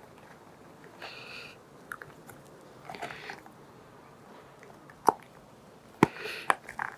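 Rubbing and rustling as a new rubber fork spring gaiter is handled and worked down over the fork spring, with a few sharp clicks and knocks near the end.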